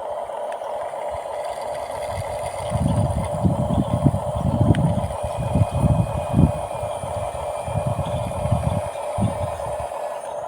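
Small RC bulldozer working, its electric motors giving a steady whine, with irregular low rumbles through the middle.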